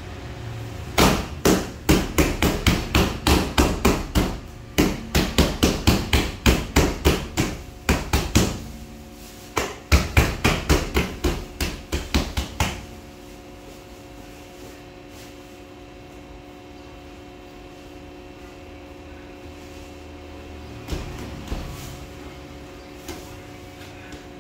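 Bread dough being slapped and pressed by hand on a stainless-steel worktable: a quick run of dull thumps, about three a second, with a short pause midway, stopping a little over halfway through. After that only a steady background hum remains.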